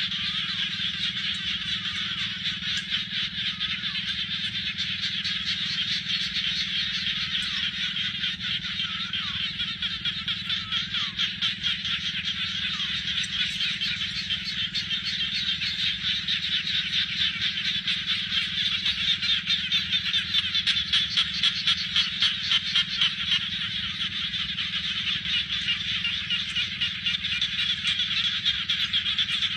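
A dense chorus of many frogs calling together, a high rapid trilling that never stops and grows louder and more plainly pulsing past the middle. A weak low rumble runs underneath.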